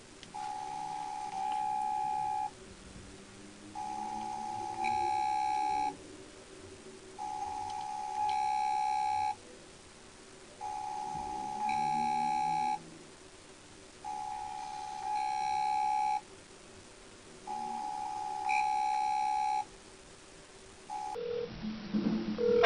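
Outgoing call's ringback tone playing through a smartphone's loudspeaker while the call goes unanswered. A steady electronic ring, about two seconds on and a second and a half off, repeats six times, each ring stepping up louder halfway through.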